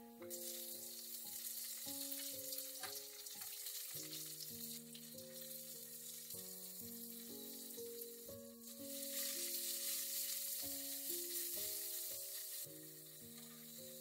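Diced garlic and red chilli sizzling in hot oil in a nonstick wok, stirred with a wooden spatula. The sizzle comes up just after the start and grows louder about nine seconds in, as more chopped vegetables go into the pan. Soft background music with sustained notes plays throughout.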